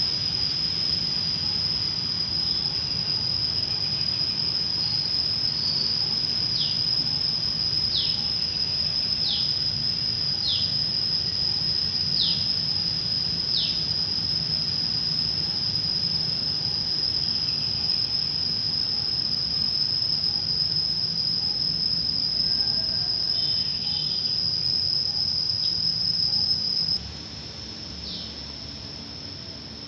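Insects chirring in one steady high note over a low background rumble, with a run of six short falling bird calls in the middle; the whole sound drops abruptly near the end.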